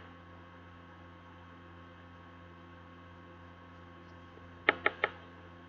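Steady electrical hum, with three sharp taps in quick succession just under five seconds in.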